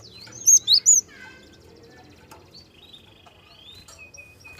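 Gelatik songbird singing: three loud, sharp, hooked chirps in quick succession about half a second in, then fainter rapid trills and buzzy notes, and a thin steady whistle near the end.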